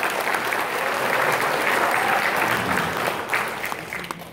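Audience applauding, a dense patter of many hands clapping that tails off near the end.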